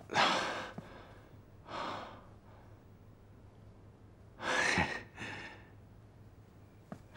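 A person breathing out heavily: four short sighing breaths, the last two close together.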